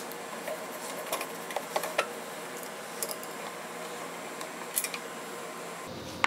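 Long-bladed screwdriver turning out a wood screw that holds a cast iron treadle base to the cabinet: a few scattered light clicks and scrapes over a steady hiss.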